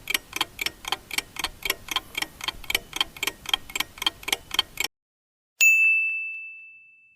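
Countdown timer sound effect: a clock ticking about four times a second, which stops suddenly about five seconds in. A moment later a single bright ding rings and fades away, marking time up.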